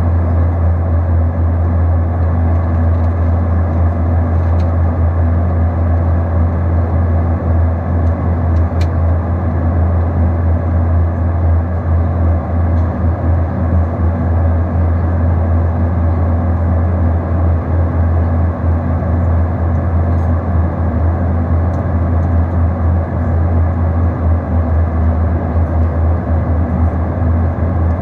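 Steady cabin noise of a Boeing 737-800 in flight, heard from a window seat beside the wing: the engines and the air rushing past the fuselage make a loud, even, deep drone.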